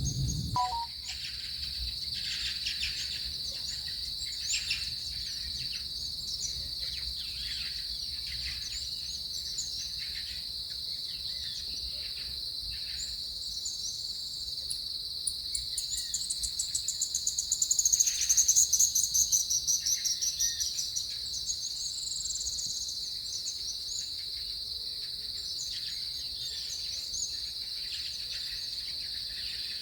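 Insect chorus, a steady high shrill that does not let up. From about halfway through, a louder, higher rapid trill rises over it for several seconds and then fades.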